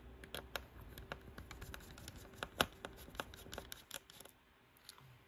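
Small screwdriver working the tiny retaining screw of a laptop's M.2 SSD: a run of light metal clicks and scratches, the sharpest about two and a half seconds in, dying down near the end.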